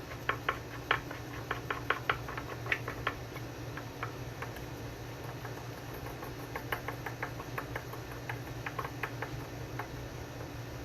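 Light clicks and ticks of a washer and hex nut being fitted and threaded by hand onto a long-threaded barrel output jack, coming in two flurries with a pause between, over a faint steady hum.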